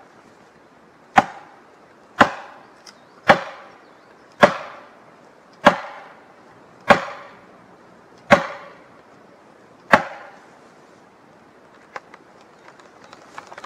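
Axe poll hammering a felling wedge into the back cut of a spruce to tip it over: eight sharp blows about a second apart, each ringing briefly, the gaps growing longer toward the end.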